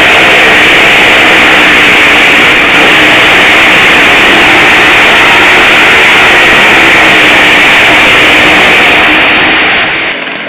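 Engines of small cars and a motorbike running hard as they circle the wooden wall of a well-of-death drum, a loud, steady din that fades out near the end.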